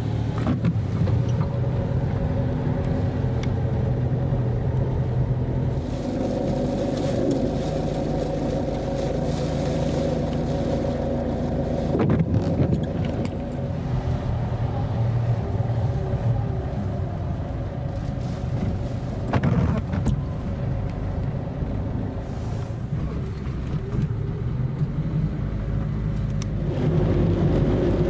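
Car engine and road noise heard from inside the cabin while driving. The engine's hum is steady and shifts in pitch now and then as speed changes, with two brief knocks about twelve and nineteen seconds in.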